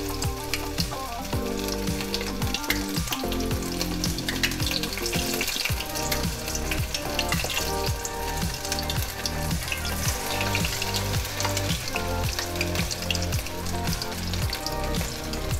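Batter-coated chicken pieces deep-frying in oil on low heat: a steady sizzle with dense crackling from the bubbling oil.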